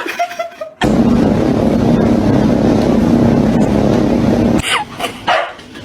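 A loud, steady mechanical drone with a constant low hum, starting abruptly about a second in and cutting off near the end, followed by a few clicks.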